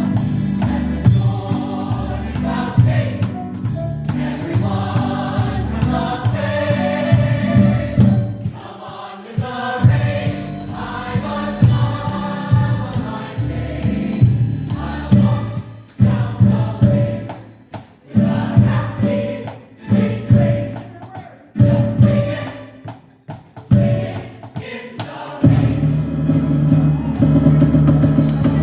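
A group of voices singing together with instrumental accompaniment. Partway through, the music breaks into short, separated chords with brief gaps before the full sound returns.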